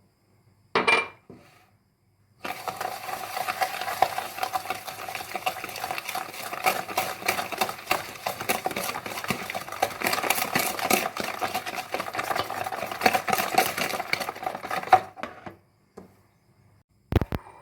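A utensil stirring rapidly against a mixing bowl for about thirteen seconds, the bowl ringing faintly under the scraping, then stopping suddenly. A single clack comes about a second in and a sharp knock near the end.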